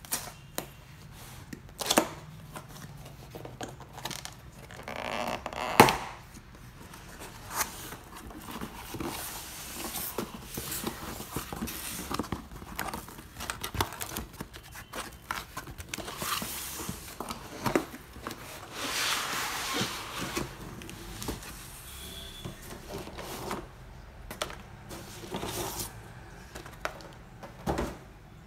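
Cardboard laptop box being opened by hand: a seal sticker peeled off, then cardboard and packaging scraping, tearing and crinkling, with scattered sharp taps and knocks, the loudest about six seconds in.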